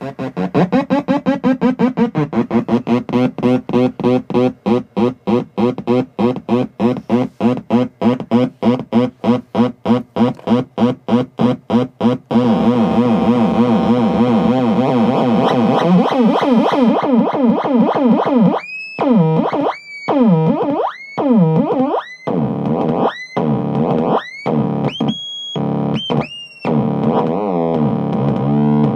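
Noise Hero DIY noise synthesizer circuit played by turning its knobs. It gives a harsh, distorted buzzing drone chopped into rapid pulses, several a second, for the first twelve seconds or so. It then holds a thick steady drone, and about two thirds of the way in breaks into stuttering bursts with swooping pitch, cut by short gaps.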